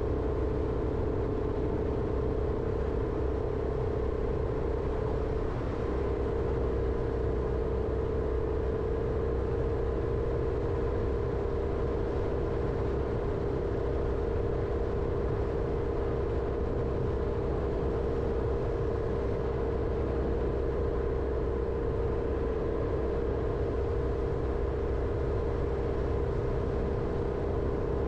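Jeep Renegade driving steadily: engine and road rumble with a constant drone whose pitch steps slightly about five and a half seconds in.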